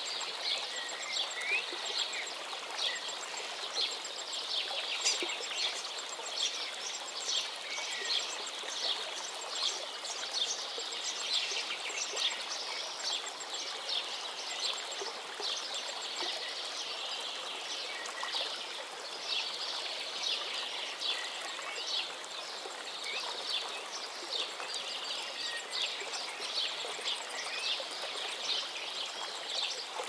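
Stream water flowing and babbling steadily, with small birds chirping throughout, including a high, fast ticking call repeated in short runs.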